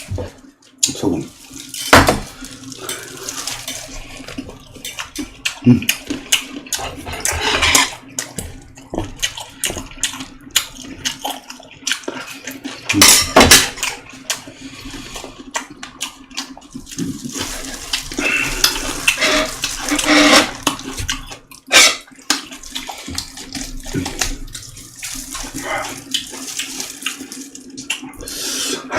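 Close-miked eating of boiled chicken: wet chewing and slurping, broken by sharp clicks of tableware, strongest about 2, 13 and 22 seconds in.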